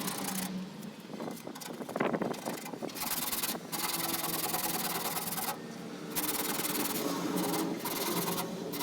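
Abrasive scrubbing on the rusty metal casing of a microwave, a rough scraping noise that comes in stretches broken by several short pauses.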